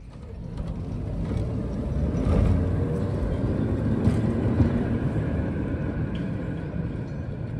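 Vintage electric tram with an open trailer car rolling past close by: a low rumble of steel wheels on the rails that builds over the first couple of seconds, with a few sharp clicks.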